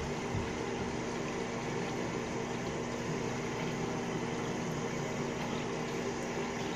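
A steady rushing noise with a low hum underneath, unchanging throughout.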